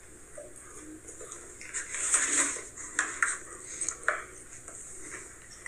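Rustling and clattering of a takeout food container being handled. A burst of rustling comes about two seconds in, followed by several sharp clicks and knocks.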